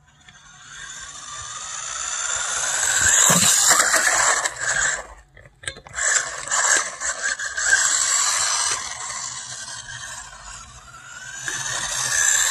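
Small electric RC truck running on asphalt: motor whine and tyre noise rise as it speeds up and comes closer. Around five seconds in the sound drops out for a moment, then a few sharp knocks follow. It runs on, fading, and builds again near the end.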